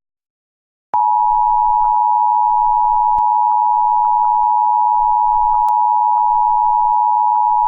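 Emergency alert attention tone: a loud, steady electronic tone that starts abruptly about a second in and holds unbroken.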